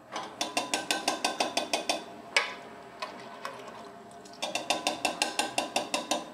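Metal utensil stirring briskly in a stainless steel saucepan, clinking against the pan about eight times a second in two runs, with a single louder knock between them about two and a half seconds in.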